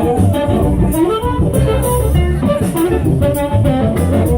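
Live blues band playing an instrumental passage: a wavering reed-instrument lead melody over guitar, bass and drums.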